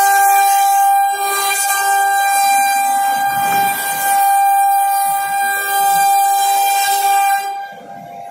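CNC router spindle running with a high steady whine over a loud hiss. About seven and a half seconds in the hiss cuts off and the whine fades and drops in pitch as the spindle winds down.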